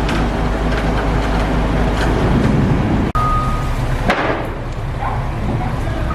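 Heavy crane engine running steadily, with a brief break about three seconds in, after which a steady high warning beep comes in; a sharp bang sounds about a second later.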